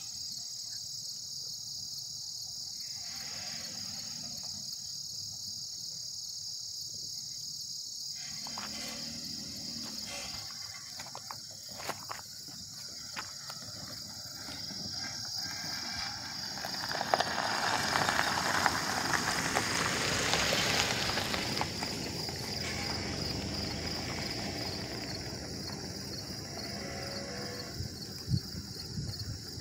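Steady chorus of crickets and other insects. Partway through, a vehicle drives over the railroad crossing and past on the gravel road, rising and then fading.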